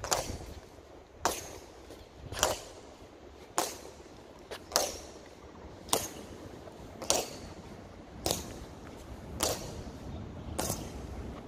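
Honor guards' boots striking the pavement in a slow, even march: one sharp click about every 1.2 seconds, about ten in all.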